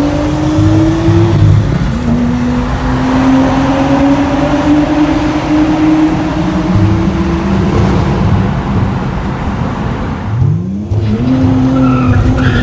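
Car engine revving under hard acceleration, its pitch climbing slowly over several seconds. About ten and a half seconds in it drops off briefly, then sweeps up again.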